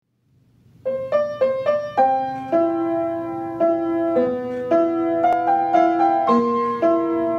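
Upright piano played solo, starting about a second in with a quick run of alternating notes, then held notes and chords that ring on under new notes.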